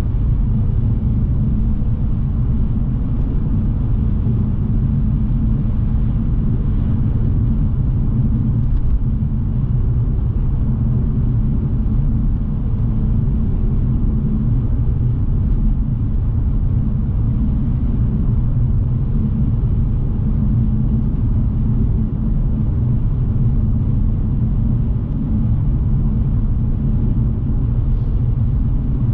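2006 BMW 630i with its 3.0-litre straight-six cruising at a steady speed, heard from inside the cabin: a steady low rumble of engine and tyre noise with a faint constant hum.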